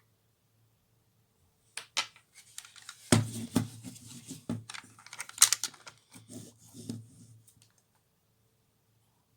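Handling noise: a run of irregular clicks, knocks and rustling, starting about two seconds in and dying away a couple of seconds before the end.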